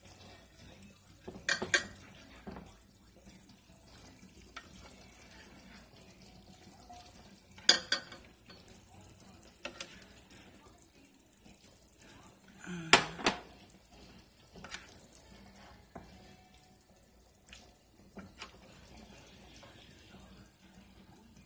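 Tongs and a spatula clinking and scraping against a pan and a glass serving bowl as cooked steak and vegetables are transferred. Three louder clusters of sharp clinks stand out, the loudest about 13 seconds in, between fainter taps.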